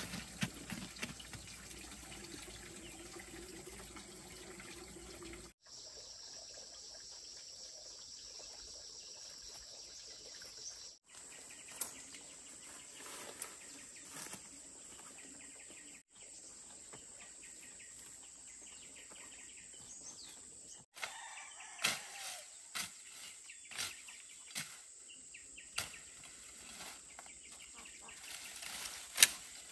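Rural outdoor background with bird chirps over a steady high hiss. In the second half come scattered sharp rustles and knocks of someone moving through brush and over rocks.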